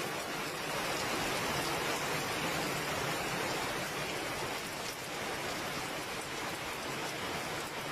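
Heavy rain falling steadily on tree leaves and flooded ground, an even hiss of a downpour.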